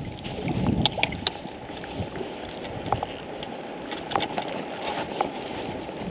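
Steady hiss of wind and lapping sea water, with low rumbles from wind on the microphone. Scattered sharp clicks and rubs come from a spinning reel and knitted gloves handled right by the microphone during a stop-and-go retrieve.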